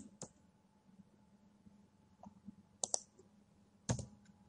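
Sparse computer keyboard keystrokes: a few sharp clicks, a pair at the start, a pair about three seconds in and one near four seconds, with a faint steady hum underneath.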